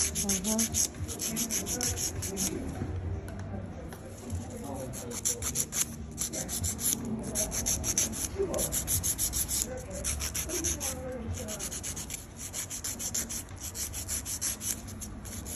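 Hand nail file rasping across a long acrylic nail in quick back-and-forth strokes, with a few short pauses.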